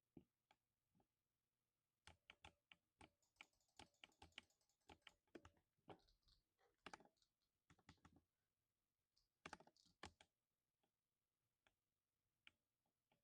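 Quiet keystrokes on a lubed 60% mechanical keyboard: a few single key presses, then a quick run of typing from about two seconds in until about ten seconds in, then a few single presses again.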